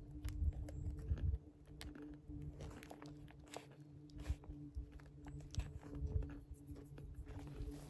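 Someone chewing and biting a crunchy snack close to the microphone: irregular crunches and clicks throughout.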